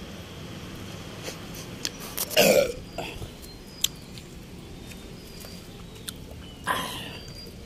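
A man belching loudly about two seconds in, with a second, shorter throat sound near the end and a few light clicks in between.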